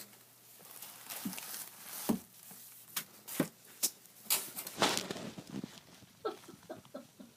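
Kittens scampering and playing, their paws patting and knocking on the floor and the objects around them in an irregular string of sharp taps.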